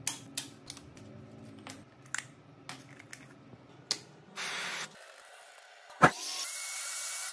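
Phone parts being handled: a run of light clicks and taps, then a short hiss. About six seconds in comes a loud sharp click, followed by a steady hiss that stops abruptly.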